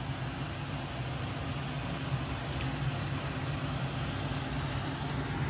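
A steady low mechanical hum with no change in level.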